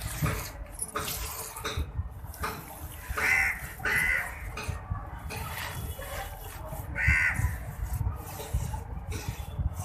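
Crows cawing, three harsh calls a few seconds apart, over soft gritty crackling and crumbling of charcoal sand cement being poured.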